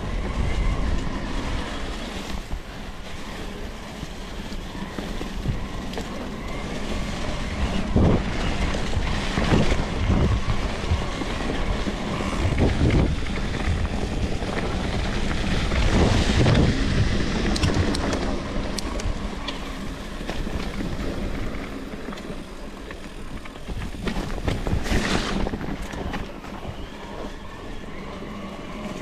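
Wind buffeting an action camera's microphone while riding a bicycle at speed, over a low rumble of tyres on the road, with occasional sharp knocks from bumps.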